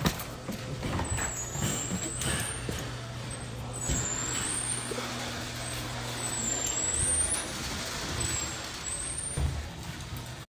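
A vehicle engine running steadily with a low hum, under street noise.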